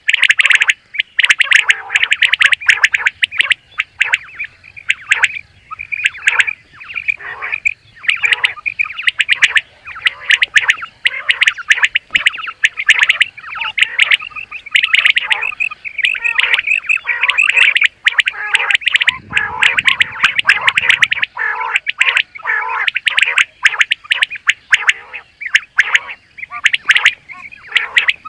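Common quail calling: loud, rapid chirping calls repeating and overlapping with no real pause.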